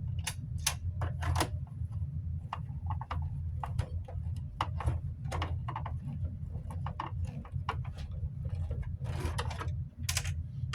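Irregular small clicks and taps of plastic fan parts and screws being handled during reassembly of a camping fan, over a steady low hum.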